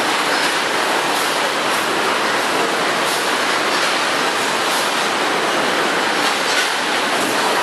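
Detergent packaging line running: belt conveyors and a vertical form-fill-seal bagging machine make a loud, steady mechanical din, with faint clicks now and then.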